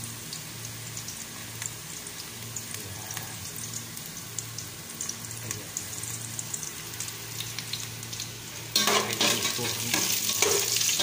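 Chopped garlic and onion sizzling in hot oil in an aluminium pot, a steady hiss with small crackles. About nine seconds in, a metal ladle starts stirring and scraping through it and the sizzling gets suddenly louder.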